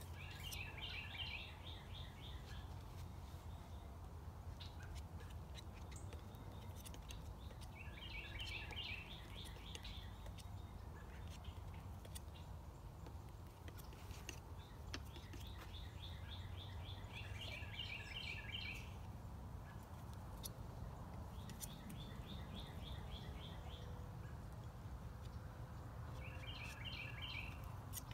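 A songbird singing five short phrases, each a quick run of repeated high notes lasting one to three seconds, a few seconds apart, over a low steady background rumble.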